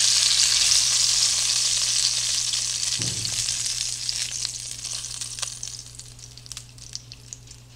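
Hot oil sizzling in a skillet as seared Italian sausages are lifted out with tongs. The sizzle fades steadily to light, scattered crackles near the end, with one soft low thump about three seconds in.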